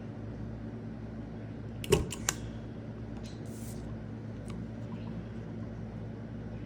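Crop-A-Dile hand punch snapping through a paper tag: one sharp click about two seconds in, followed quickly by two lighter clicks, then a few faint ticks and a brief paper rustle.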